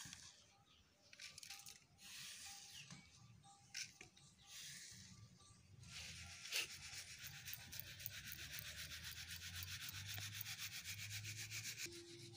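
Ground fennel-seed powder being sifted through a fine mesh sieve: faint dry rubbing and scraping at first, then, about six seconds in, a steady quick shaking rhythm of the sieve that stops near the end.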